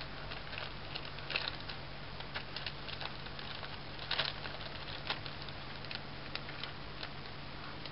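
Plastic bag crinkling and a towel rustling as a kitten paws and scratches at them: scattered light crackles and scratches, loudest about a second and a half and four seconds in, over a steady low hum.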